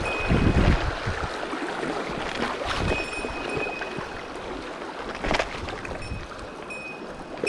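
Mountain stream water rushing, with wind buffeting the microphone near the start. A thin, high, steady tone comes and goes a few times, and there is one sharp knock about five seconds in.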